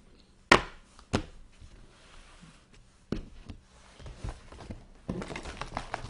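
Hands handling trading-card packs and cards on a table: two sharp knocks, then lighter taps, and a denser rustle of packs being worked near the end.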